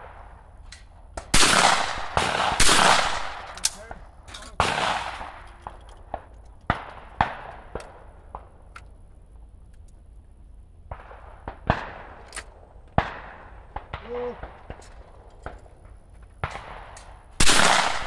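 Shotgun shots at clay targets: a loud pair about a second apart near the start, another loud shot soon after, and more loud shots near the end, each with a ringing echo. Fainter shots from elsewhere on the course come in between.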